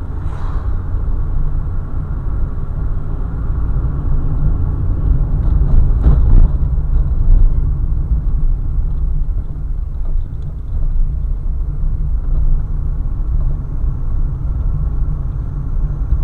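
A car driving along, with a steady low rumble of road and engine noise. A couple of brief louder noises rise over it, the most marked about six seconds in.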